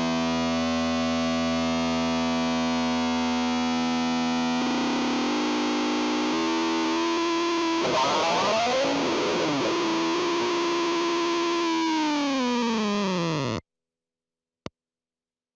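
Epiphone SG 400 electric guitar through a Fuzz Factory fuzz pedal, sustaining thick fuzzed notes, with a warbling, jumbled stretch about halfway. Near the end a held note slides down in pitch and cuts off suddenly, followed by a faint click.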